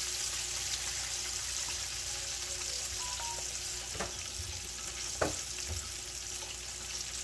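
Steady frying sizzle from a pan of sliced onion and carrot with sweet-and-sour sauce poured in and heating. Two light knocks come about four and five seconds in.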